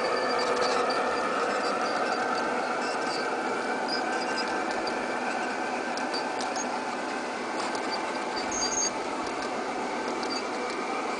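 G-gauge model diesel locomotive pulling a freight train along garden track: a steady mechanical hum with light clicks from the wheels, slowly fading as the train moves away.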